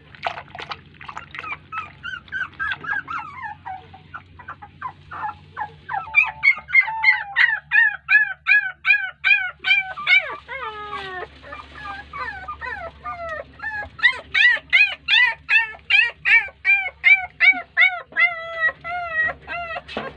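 Young puppies crying for their mother, who is ignoring them: rapid runs of high whimpering cries that rise and fall in pitch, about three a second. They grow loudest about six seconds in and again past the middle.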